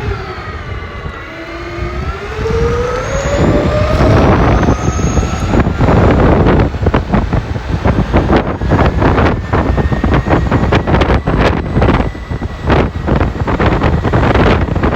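Whine of a 300 KV brushless electric motor that drops in pitch and then climbs again over the first few seconds. Loud, gusting rushing noise then takes over, with a faint steady high tone underneath.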